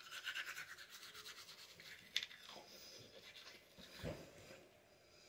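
Faint toothbrush scrubbing teeth: rapid, scratchy back-and-forth brushing, busiest in the first two seconds, with a click about two seconds in and a dull knock around four seconds.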